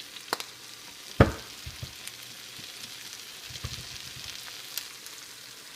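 Fried rice sizzling in a hot pan while it is stirred, with a steady high hiss and scattered sharp clacks of the spatula against the pan, the loudest about a second in.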